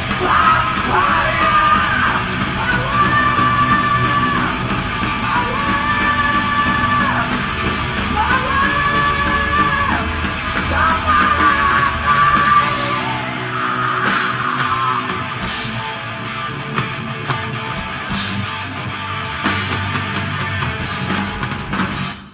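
Heavy metal band playing live, with distorted guitar and drums: yelled, held vocal notes of about a second and a half each over the first thirteen seconds or so, then the band plays on without vocals, with a few cymbal crashes. The sound drops out abruptly right at the end.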